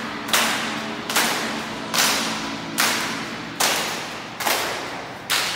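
A steady beat of loud, sharp drum-like hits, about one every 0.85 seconds, each ringing out with echo off the concrete of a parking garage.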